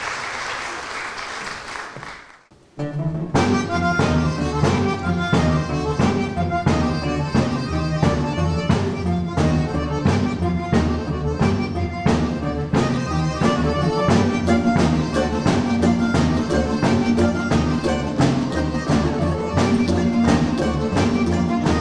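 Audience applause dies away over the first two seconds. After a brief pause a folk instrumental ensemble of long-necked plucked lutes, button accordion, violin and double bass starts playing, with a steady plucked beat.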